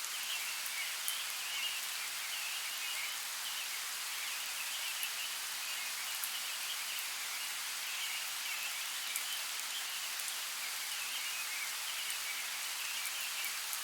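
Light rain falling steadily in a forest, with individual drops pattering, and birds chirping over it again and again.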